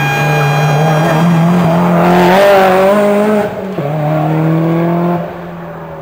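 Subaru Impreza race car's turbocharged flat-four engine held at high revs as it drives hard through a bend. It is loudest about halfway through, cuts back sharply for a moment, then pulls on and fades a little after five seconds as the car goes away.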